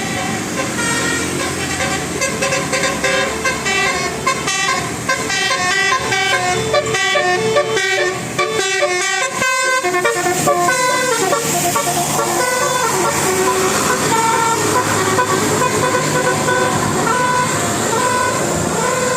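Indonesian bus "telolet" musical air horn playing a tune: several horn tones sound together and step quickly from note to note. The notes turn slower and longer in the second half.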